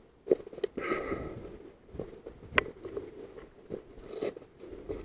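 Footsteps crunching through grass and brush, with vegetation rustling against the body and a few sharp cracks, the loudest about half a second in and another about two and a half seconds in.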